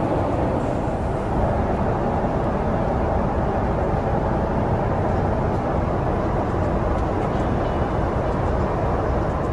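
Steady cabin noise of a Boeing 777-200LR airliner in flight: an even, low rush that does not change.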